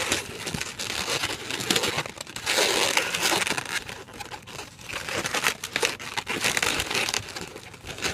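Inflated latex twisting balloon being handled and knotted by hand: irregular rubbing and crinkling of latex against latex and fingers, loudest in short runs.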